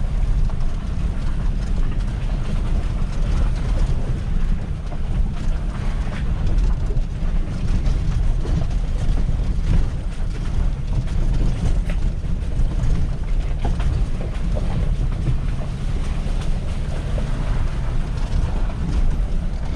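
Steady low rumble of a truck driving: engine and road noise, with no change in pace.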